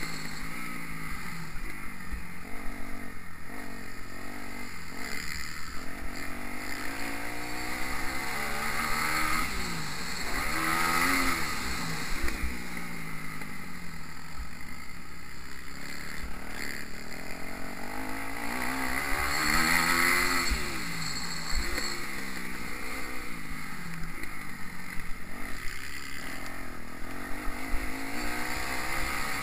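Kawasaki KX250F four-stroke single-cylinder motocross engine heard from on board while riding, revving up and down repeatedly as the throttle opens and closes, its pitch rising and falling every few seconds.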